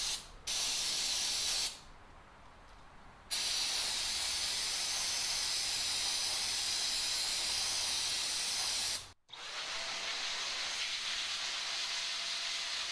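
Aerosol can of electronic contact cleaner spraying over a motherboard's CPU socket in long bursts, with a short break just after the start and a pause of about a second and a half soon after. About nine seconds in it gives way to a handheld electric blower blowing air over the board: a steady rush with a faint steady whine.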